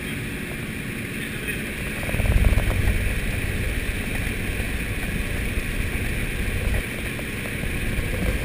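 Aircraft engine drone mixed with wind noise, heard from inside the cabin at the jump door. About two seconds in, a heavy low rush of wind comes in and stays as the door opens.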